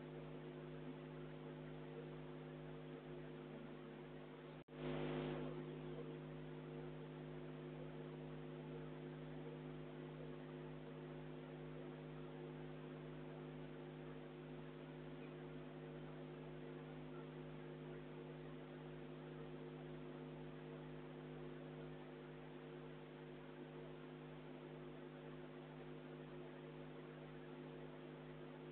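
Steady electrical hum with a hiss beneath it. About five seconds in it cuts out for an instant and comes back louder for about a second.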